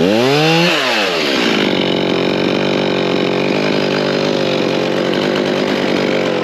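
Large chainsaw cutting through tree branches at full throttle. Its engine pitch swings up and back down in the first second or so, then holds steady as the chain bites through the wood.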